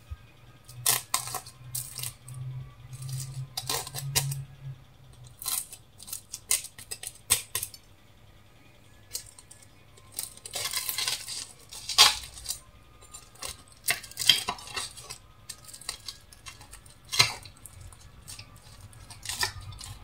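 A fork breaking into a flaky fried keema katlama on a plate: irregular crackles of the pastry layers tearing, mixed with sharp clinks of metal on the plate, some of them loud, with a thicker run of crackling about halfway through.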